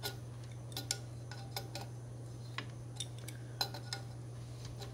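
A small wrench tightening a pipe fitting on an engine, making light metal-on-metal clicks at uneven intervals, about a dozen in all. A steady low hum runs underneath.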